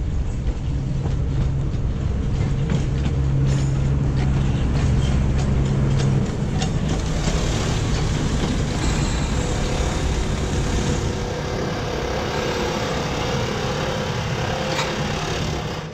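Diesel engine of the Botchan Ressha replica locomotive running with a steady low hum, with clicking from the wheels over the rails for a few seconds. About six seconds in, the sound changes to broader engine noise heard close to the locomotive.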